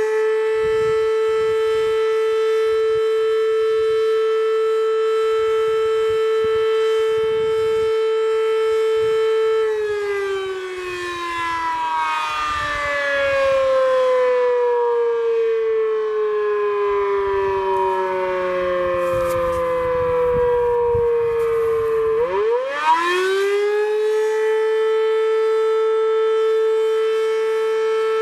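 Sterling 5VX fire siren sounding its attack cycle: a steady held wail for about ten seconds, then a long wind-down with the pitch sliding slowly lower. About six seconds before the end it winds quickly back up to the steady wail.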